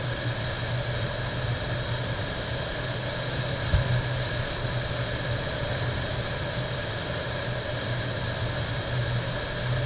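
River whitewater rushing and churning steadily through a play hole, with a low rumble under it. A single sharp knock about four seconds in.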